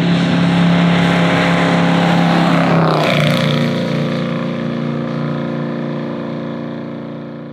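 Marciano 268A's 2.6-litre V8 driving past at speed. The engine note is steady, drops in pitch as the car passes about three seconds in, then fades as the car drives away.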